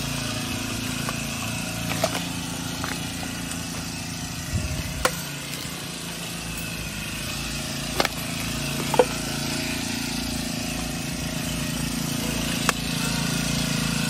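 Backpack brush cutter's small engine running steadily, with a few sharp clicks scattered through it.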